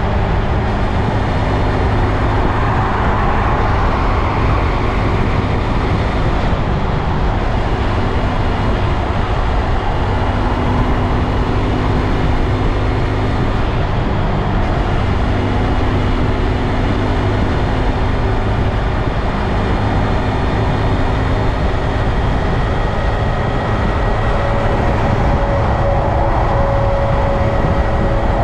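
Honda Grom motorcycle's small single-cylinder engine running under way, with heavy steady wind and road noise. A faint whine at a steady pitch comes in near the end.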